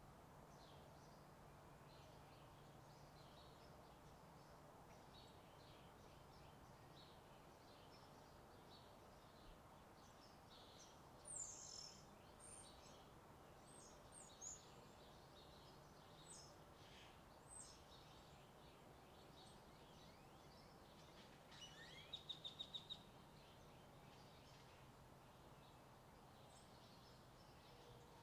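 Faint morning ambience: scattered short bird chirps over a low, steady hum of distant highway traffic, with a quick run of about seven sharp bird notes a little past twenty seconds in.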